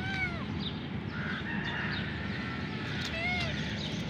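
Kitten meowing twice: short, high-pitched mews that rise and fall, one at the start and another about three seconds in.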